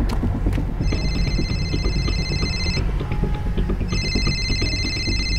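Mobile phone ringing with a trilling ringtone: two rings of about two seconds each, about a second apart, over a low steady rumble.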